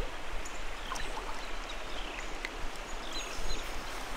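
Shallow creek water running steadily over rocks, with a bird's short falling chirps repeating about once a second.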